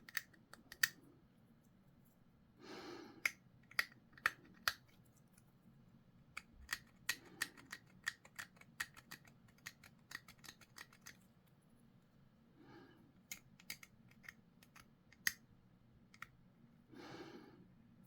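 Hobby clippers snipping plastic miniature parts off the sprue and the pieces being handled: a series of sharp little clicks, thickest in the middle, with a few soft swishes between them.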